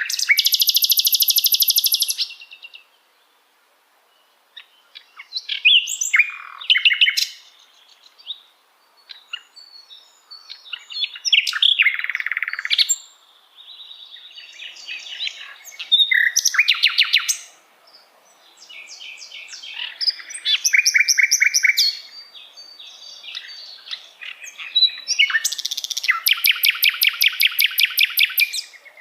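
Common nightingale singing: a string of varied phrases of whistles and fast, evenly repeated notes, with short pauses between them. Loud rapid note series come at the start, at about 17 and 21 seconds, and in a longer run near the end.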